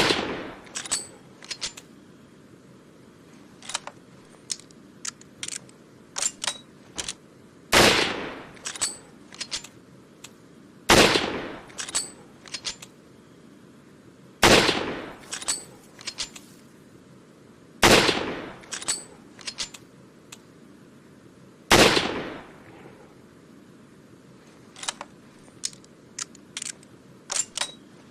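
Springfield rifle fired six times: one shot right at the start, then five more about every three to four seconds, each with a trailing echo. Quick runs of sharp metallic clicks fall between the shots and after the last one, as the rifle's action is worked.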